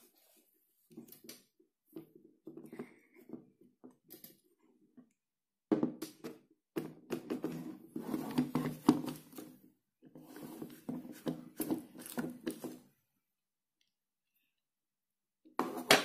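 Plastic blade base of a personal blender twisted off its cup by hand: bursts of creaking and scraping from the plastic threads, loudest in the middle, then a sharp knock near the end.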